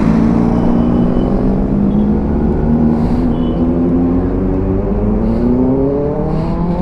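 Motorcycle engines at low speed, led by the camera bike's own Suzuki Hayabusa inline-four, holding a steady note and then rising smoothly in pitch over the last couple of seconds as it pulls away.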